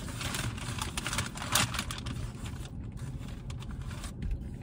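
Paper food wrappers and packaging rustling and crinkling in irregular clicks, the loudest about a second and a half in, over a steady low hum.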